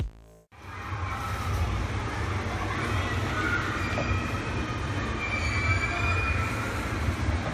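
Carousel turning: a steady low rumble with a few faint high squeals.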